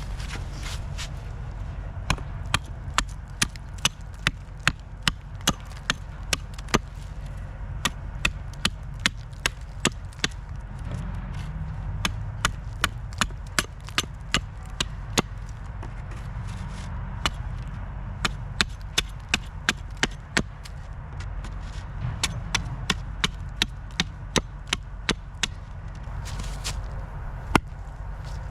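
Repeated sharp strikes of a hand tool, about three a second, in five runs of several seconds with short pauses between.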